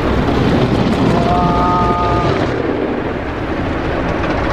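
Automatic car-wash machine working over the car, heard from inside the cabin: rotating cloth brushes and water spray against the windshield and body, a loud steady wash of noise.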